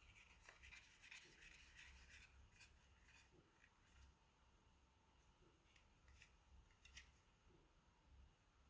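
Near silence with faint handling noises: light rubbing for the first couple of seconds, then a few soft clicks, one sharper click about seven seconds in.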